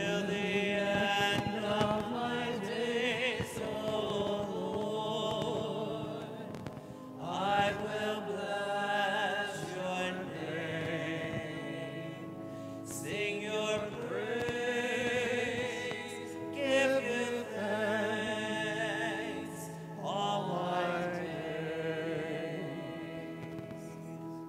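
A sung church hymn: a single cantor's voice with vibrato, in long drawn-out phrases, over held instrumental chords.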